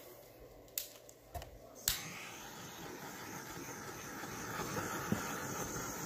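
Small handheld torch: three sharp clicks, the last about two seconds in, then a steady hissing flame that grows a little louder as it is passed over the wet acrylic pour paint to pop surface bubbles.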